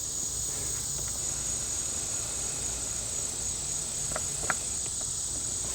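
Steady high-pitched insect chorus, with a couple of faint short clicks about four seconds in.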